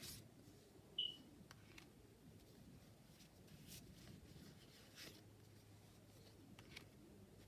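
Tarot cards being handled very quietly: a few soft taps and rustles of card stock, with one brief high squeak about a second in.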